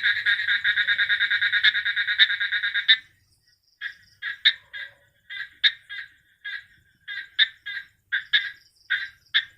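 Frog calling: a continuous fast pulsing trill that breaks off about three seconds in, followed by a string of short pulsed calls repeated about twice a second.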